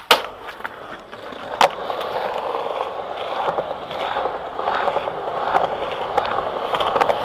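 Skateboard wheels rolling on a smooth tiled surface, with two sharp clacks of the board hitting the ground near the start. After that the rolling is steady and grows louder, swelling and fading with the pushes and dotted with small clicks.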